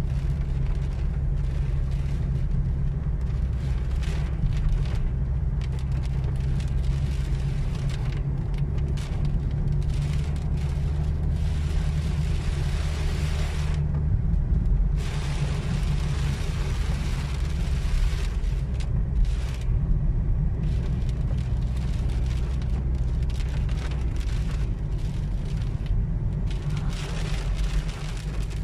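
Inside a car driving in rain: a steady low drone of engine and road noise, with a hiss of rain and wet tyres that swells and fades every few seconds.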